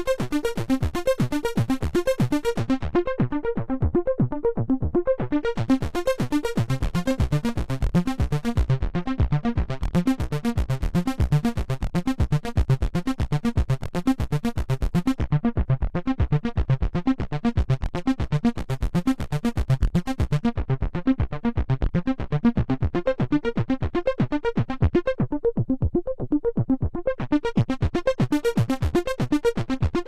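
Behringer Poly D analog synthesizer playing a rapid, steady sixteenth-note sequence. Its filter is swept open and closed by hand, so the notes turn bright and then dull several times over.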